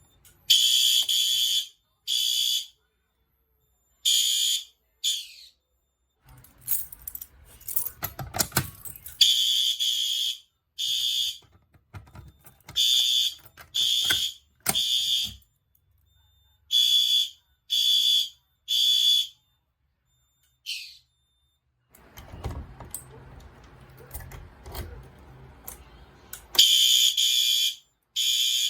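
Fire alarm horns sounding in short, loud, high-pitched blasts in groups of two or three, and one longer blast near the end. Clicks and clattering handling noises fall between the groups. The horns sound briefly each time a device is tripped during a fire alarm walk test.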